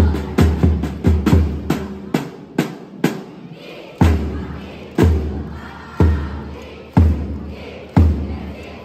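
Dance music with a heavy, booming beat, reverberating in a large hall. The beat runs at about three a second for the first three seconds, the bass drops out for a moment, then the beat comes back at one a second.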